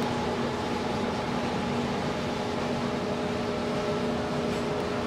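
Steady hiss with an even, low machine hum underneath, holding at one level throughout.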